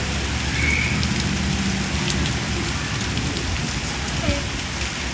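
Heavy rain falling steadily on surfaces during a flash-flood downpour.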